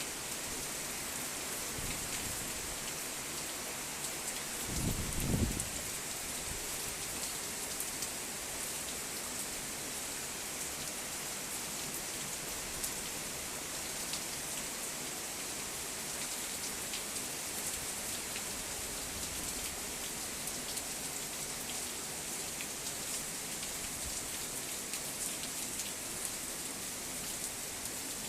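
Heavy rain falling steadily, a dense hiss of drops pattering on surfaces with many fine ticks. A brief low rumble about five seconds in.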